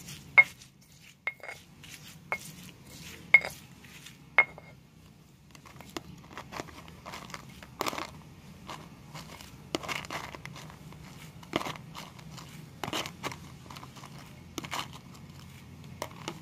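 Stone pestle striking a stone mortar (cobek) about five times in the first four and a half seconds, each a sharp clack with a short ring. From about six seconds on there is softer, irregular crunching and rustling as fresh leucaena (petai cina) seeds are tipped in and worked into the sambal paste.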